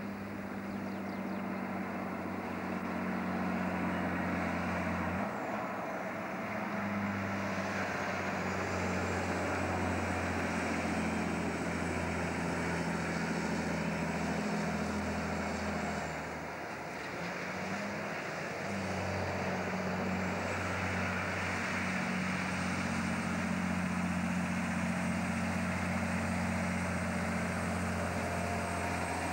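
Heavy diesel log truck engines pulling loaded trailers: a steady low drone that cuts out briefly about five seconds in and again past the middle.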